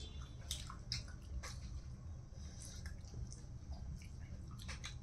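Close-miked eating: wet mouth clicks, smacking and chewing as a person bites and chews fried food, with a cluster of crisp crackles near the end, over a steady low hum.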